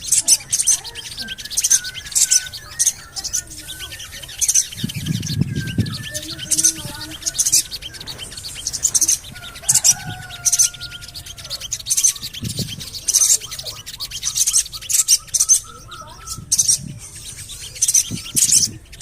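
Sogon (crimson sunbird) calling: short, high-pitched 'cuit' chirps repeated about once a second, with fainter thin whistled notes between them.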